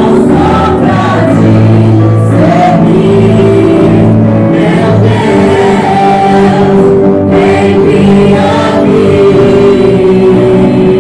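Church praise choir singing a gospel worship song over musical accompaniment, loud and continuous.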